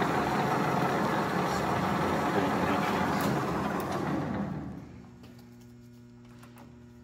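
Engine lathe (1980 LeBlond Regal Servo Shift) running with a steady machine noise that winds down about four and a half seconds in as it is switched off, leaving a low steady electrical hum.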